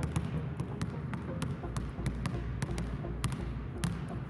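Two basketballs dribbled on a hardwood gym floor in a behind-the-back dribbling drill, a quick, uneven run of overlapping bounces at about four a second.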